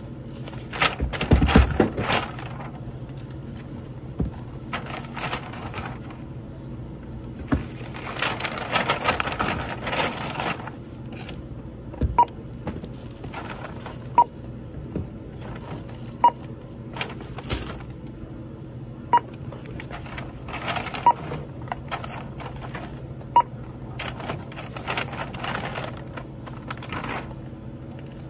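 Checkout barcode scanner beeping six times, one every two seconds or so, as items are scanned. Between the beeps come bouts of paper bag rustling as the items are bagged, over a steady low hum.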